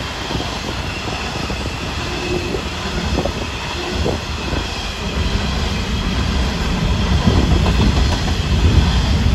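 Freight train of hopper wagons rolling past: a steady rumble and clatter of steel wheels on the rails with a few knocks, getting louder over the last few seconds.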